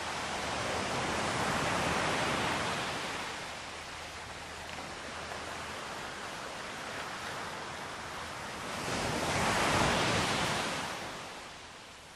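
Ocean waves breaking and washing on a shore. The wash swells to a peak about two seconds in, settles to a steadier wash, then swells again near the end and falls away.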